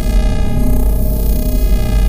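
Synthesized sci-fi spaceship drone: a deep rumble under a stack of steady held tones, with a slow throb about once a second.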